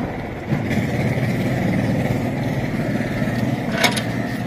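A motor running steadily with an engine-like hum, a little louder from about half a second in.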